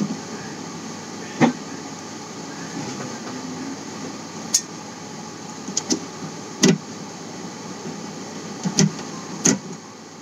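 Hand screwdriver driving screws into the sheet-metal chassis of an all-in-one PC, with about half a dozen sharp metallic clicks and taps of the tool and screws on the metal, over a steady room hum.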